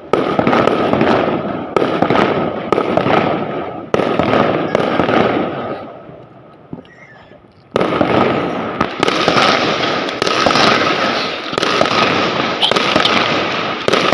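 Fireworks going off in quick succession, a string of sharp bangs each trailing into dense crackling. They die away about six seconds in, then start up loudly again about two seconds later.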